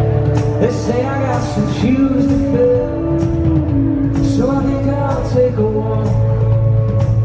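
Live band playing a song: strummed acoustic guitars and electric guitar with a man singing lead.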